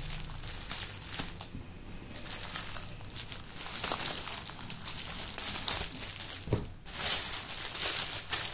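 Clear plastic packaging cover crinkling as hands handle it and start pulling it open around a fabric duffel bag, the crinkling growing louder about seven seconds in.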